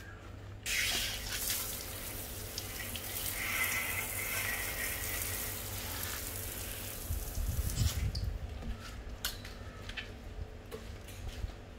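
Water from a garden hose spraying onto a soapy alloy wheel and tyre, hissing steadily as the suds are rinsed off. The spray starts about a second in and stops at about eight seconds. Scattered small clicks and drips follow as the wet wheel is handled.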